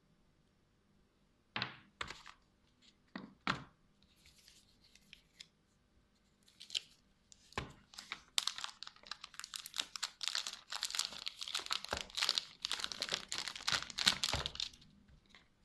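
A few sharp knocks from handling, then about seven seconds of continuous crinkling and tearing of plastic packaging being pulled open.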